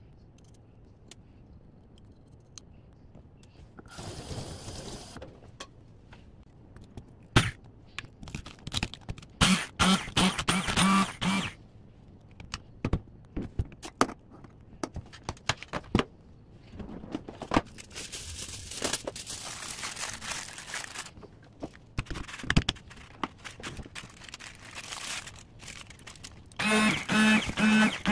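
Braun MultiQuick hand blender run in short on-off pulses, its motor whirring in bursts as the blade chops peeled garlic cloves in a stainless steel cup, with knocks and scrapes of blade and cup between bursts. Near the end it runs in a fast string of pulses under a crumpled aluminium-foil cover.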